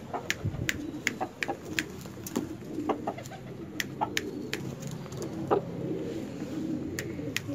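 Sharp finger snaps, irregularly about two a second, with pigeons cooing steadily underneath.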